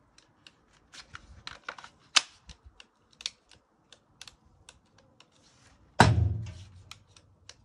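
Irregular clicking from a dead Milwaukee cordless drill as its trigger and switches are worked, with no motor running. About six seconds in, one loud knock as the drill is set down on the cast-iron saw table.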